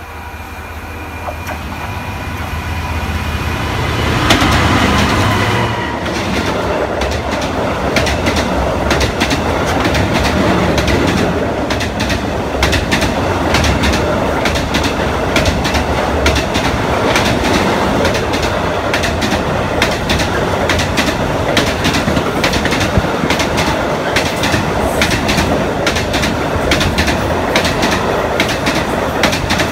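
Diesel-hauled container freight train running through at speed. It grows louder as the locomotive approaches and is loudest as it passes about four seconds in. After that a long string of container wagons clatters past with a rapid, steady clicking of wheels on the rails.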